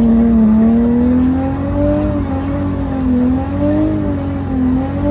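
Nissan GT-R engine heard from inside the cabin, held at high revs under throttle during a drift, its pitch rising and dipping slightly.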